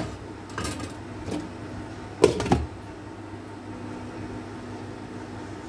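A spatula knocks against a nonstick pan, then a glass cooking lid is set down on the pan with a double clatter about two seconds in. A steady background hum runs underneath.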